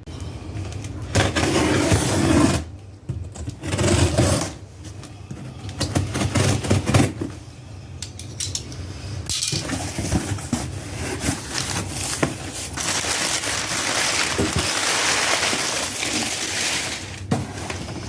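Package being opened by hand: long stretches of scraping, tearing and crinkling of packaging, broken by many sharp clicks and knocks.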